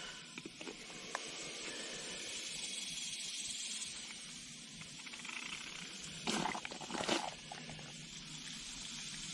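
Faint hiss of WD-40 being squeezed from a plastic squeeze bottle through a brass valve stem into an aerosol can, with two brief louder bursts about six and seven seconds in.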